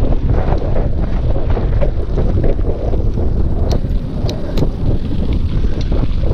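Wind buffeting the microphone over the rumble of a mountain bike ridden fast on a dry dirt trail, with a few sharp clicks and rattles about four seconds in.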